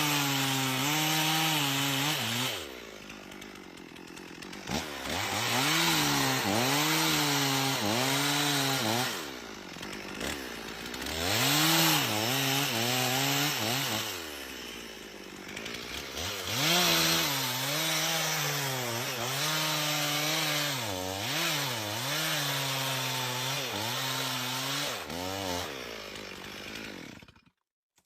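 Chainsaw cutting through wood, its pitch dipping and recovering again and again as the chain bites, with a few brief lulls where it eases off. It cuts off suddenly near the end.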